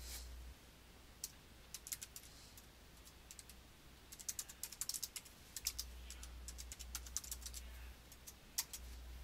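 Typing on a computer keyboard: irregular bursts of quick keystrokes with short pauses between them.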